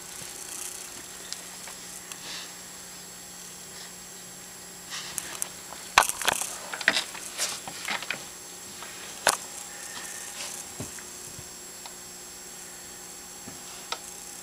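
Scattered light clicks and knocks over a steady faint hum, bunched together around the middle, with one sharper click a little later.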